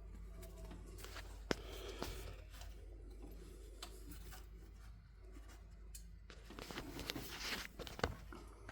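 Faint rubbing and scraping handling noises with a few sharp clicks, over a steady low hum.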